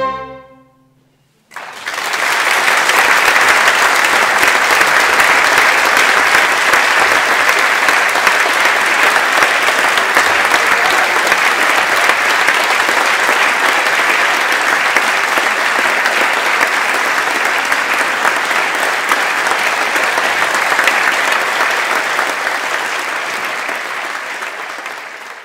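The string chamber orchestra's final chord fades out in the first second. After a brief hush, a hall audience applauds steadily and densely, tapering off near the end.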